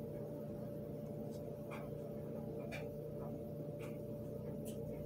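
Fingers handling a small ring, making a handful of faint, irregular clicks and rustles over a steady low hum.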